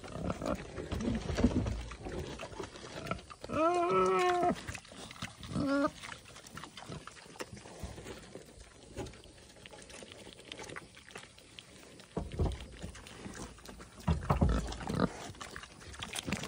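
Pigs grunting and snuffling at feeding time, with low thumps. A drawn-out pitched call comes about three seconds in, and a short one follows near six seconds.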